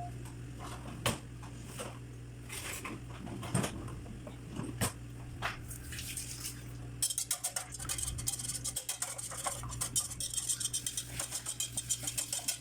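Eggs being beaten in a bowl: a utensil clinking against the bowl, a few scattered clinks at first, then quick rhythmic strokes several times a second from about seven seconds in.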